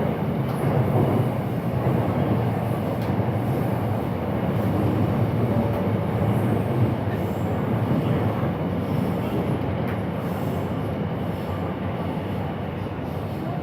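A loud, steady rumbling noise that eases slightly toward the end.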